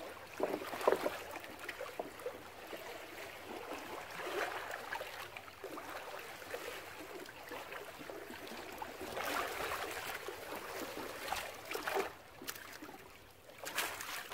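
Small choppy waves lapping and splashing against a concrete dam wall and the bank, coming in irregular surges with a few sharper slaps.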